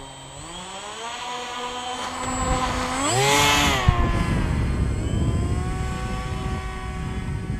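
The motor and propeller of an RC paramotor whining as it throttles up for takeoff, the pitch climbing over the first few seconds and rising sharply about three seconds in, when it is loudest as the model flies close past. It then holds a steady tone as the paramotor climbs away.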